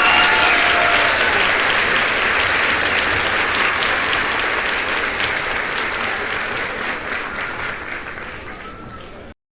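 A crowd applauding with a few cheers at first, a dense clapping that slowly fades and then cuts off abruptly near the end.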